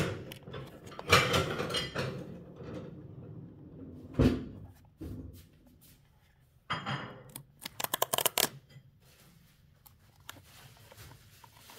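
Hands handling and opening a small cardboard retail box: irregular rustling and scraping of card, a single knock about four seconds in, and a quick run of crackling near the middle as the box's perforated edge is torn open.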